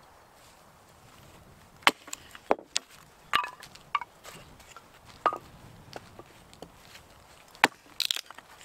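Axe blows on firewood: sharp, irregular chopping knocks, single strikes a second or so apart, then a quick cluster of knocks near the end.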